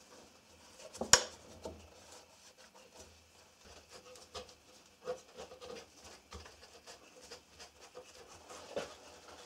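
Handling noise of a clamped wooden box on a workbench: a sharp knock about a second in, then soft rubbing of a cloth and light clicks and taps as the box is lifted and wiped.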